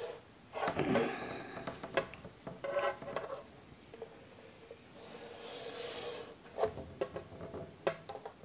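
Chalk scraping along a wooden ruler on a chalkboard, drawing straight lines in several separate strokes, with a few sharp knocks as the ruler is set against the board between strokes.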